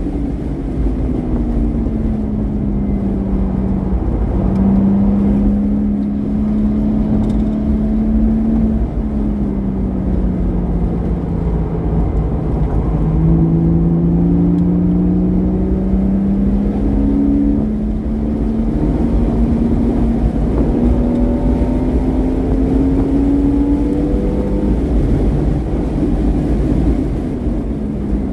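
Porsche Boxster S flat-six with a modified exhaust, driven at speed. The engine note climbs steadily under acceleration, then drops away when the driver lifts or brakes. This happens several times over a constant low rumble of road and wind noise.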